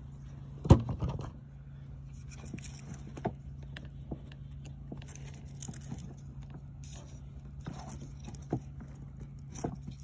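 Handling noise from a metal headlight bulb bracket and hand tools: one sharp click about a second in, then a few light ticks, over a steady low hum.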